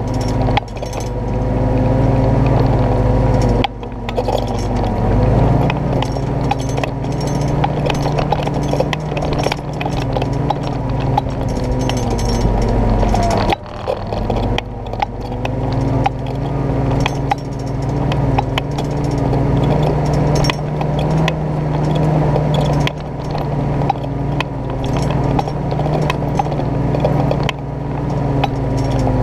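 1948 Willys CJ2A's four-cylinder flathead engine running at low speed while the jeep crawls over rock, heard from on board. Frequent clanks and rattles sound over it, and the engine sound dips briefly about halfway through.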